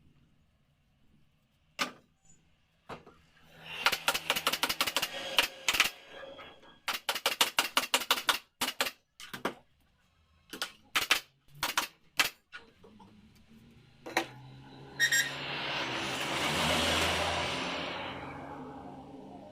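Staple gun firing in quick runs of sharp clicks as upholstery is fastened to a sofa frame, then a few single shots. Near the end a rushing noise swells and fades.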